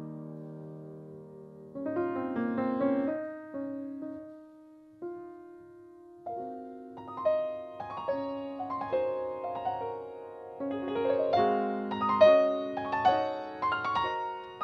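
Solo piano playing a slow, gentle piece: held chords at first, a sparser stretch about four to six seconds in, then a busier run of notes that grows louder toward the end.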